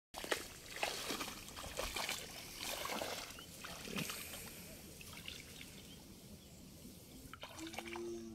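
Water trickling, dripping and sloshing as a wet cast net is gathered up by hand while wading in shallow floodwater, busiest in the first half. A brief low steady tone sounds near the end.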